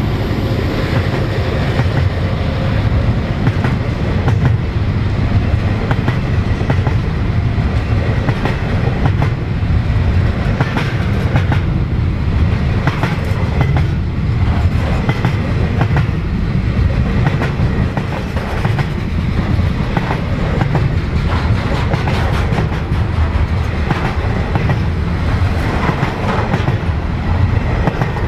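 Container wagons of a freight train rolling past on the rails: a steady low rumble with many short clicks of wheels over rail joints.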